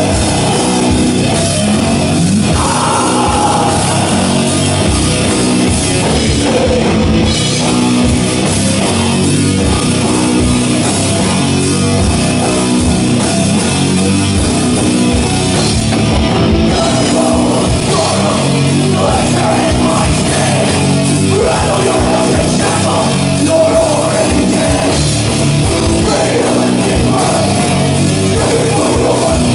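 Extreme metal band playing live: electric guitar, bass and drum kit, loud and unbroken.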